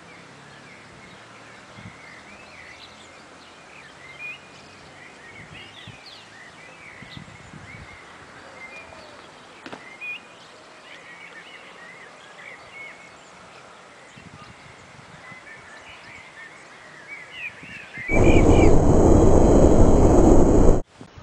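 Birds chirping over quiet outdoor ambience, with a few soft thuds of feet landing on stone blocks. Near the end a loud rushing noise comes in for about three seconds and cuts off suddenly.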